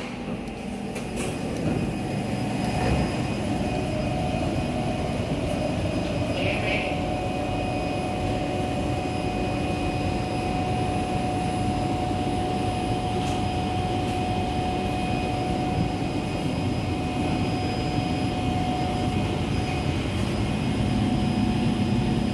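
Steady hum and rush of a stationary Kawasaki C151 metro train's air-conditioning and auxiliary equipment, with a thin steady whine, heard inside the car while its doors stand open.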